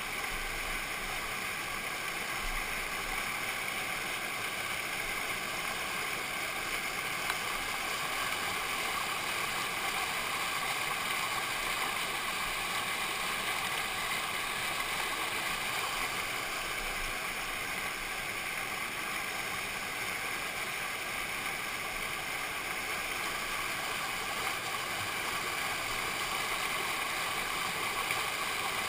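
Whitewater rapid rushing steadily: churning water pouring over rocks, heard close up as an even, unbroken rush.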